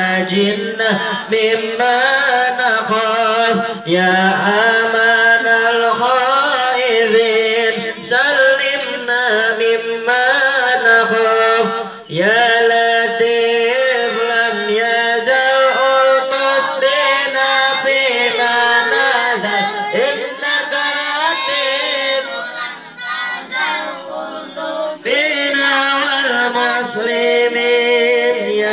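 A boy's voice singing an Arabic devotional chant, long ornamented notes that waver up and down, phrase after phrase with short breaks for breath.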